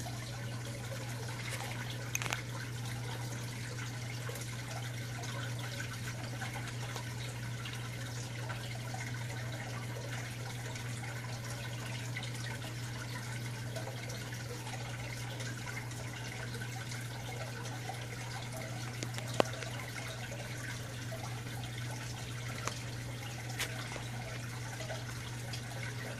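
Steady low hum under an even hiss, with a few faint clicks: background room tone.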